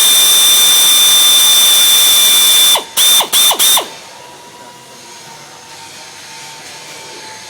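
Power drill drilling out a pop rivet in an aluminum door jamb: one run of nearly three seconds, then three short bursts of the trigger, the motor whining high and steady while it turns.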